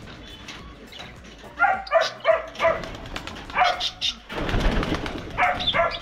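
A dog barking repeatedly in quick bursts of two or three barks, starting about a second and a half in.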